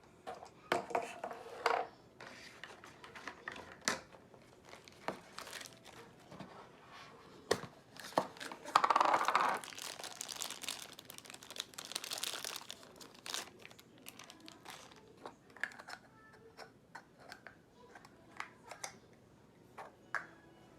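Toy packaging being torn open and crinkled by hand, with many small clicks and taps in between and two longer, louder bouts of rustling and tearing about halfway through.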